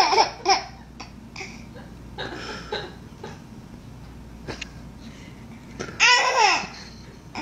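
Baby laughing in short squealing bursts, loudest at the start and again about six seconds in, with a quieter run of laughs in between.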